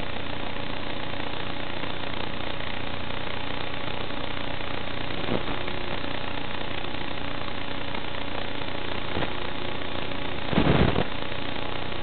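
Onboard sound of a FlexRC Ascent Extreme FPV quadcopter flying in gusty wind: a steady hiss with faint steady whine tones through it. A brief louder rush comes near the end.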